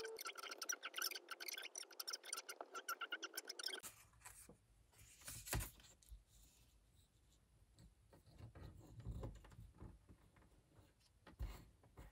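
Pen scratching on notebook paper in quick, rapid strokes. About four seconds in this stops, and what follows is faint paper rustling and a few soft taps as a sheet of lined paper is handled against a wall.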